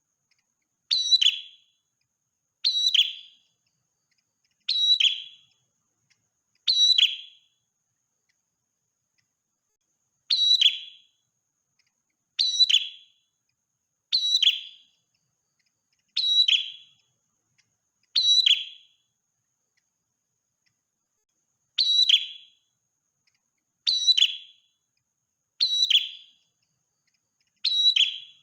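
Prenjak merah, a small songbird, calling: a short, high, ringing call that starts sharply and fades, repeated about every two seconds, with two brief pauses.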